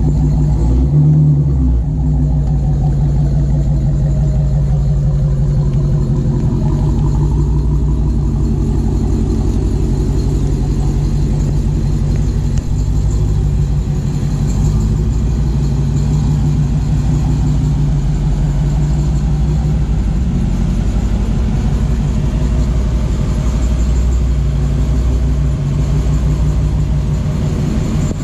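Dodge Hellcat's supercharged V8 running steadily while the car drives along, with a low engine drone and road noise.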